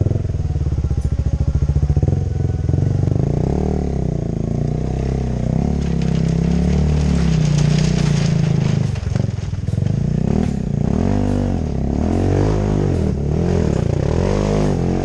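Motorcycle engine running under way, its pitch rising and falling with the throttle. From about halfway in, short crackling clatters join it, typical of riding over a gravel road.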